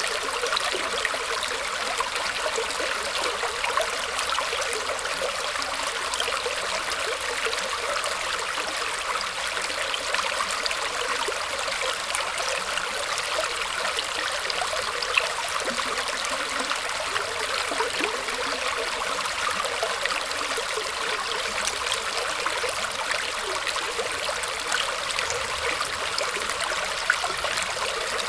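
Shallow water flowing and trickling steadily over and around tree roots, a continuous babbling hiss with small splashes.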